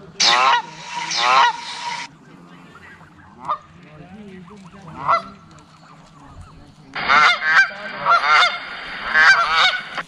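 Recorded Canada goose honking played through a phone's speaker, in two loud bursts: one in the first two seconds and one from about seven seconds in to the end. A couple of single honks come in between.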